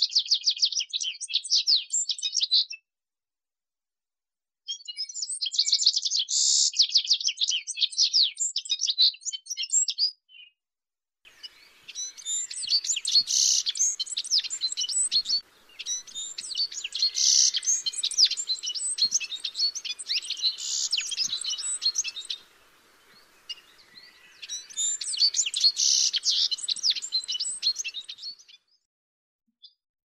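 Citril finch singing: a fast, high twittering song in five bouts with short pauses between them.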